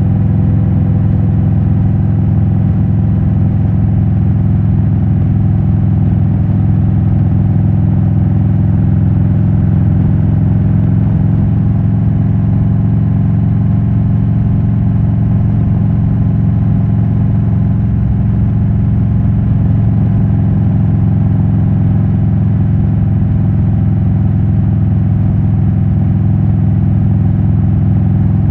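Exhaust of a 2007 Harley-Davidson Road King's 96-cubic-inch V-twin, fitted with Rush Big Louie mufflers and S&S cams, running at a steady engine speed while the bike is ridden down the highway.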